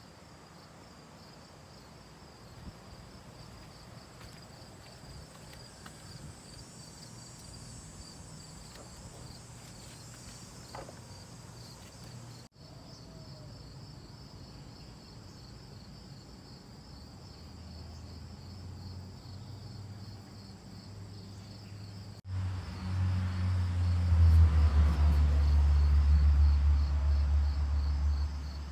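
Insects chirping in a steady, pulsing high trill. In the last several seconds a loud low rumble swells up and drowns it out.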